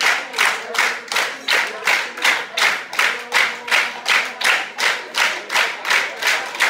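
Audience clapping in unison, a steady rhythmic beat of nearly three claps a second.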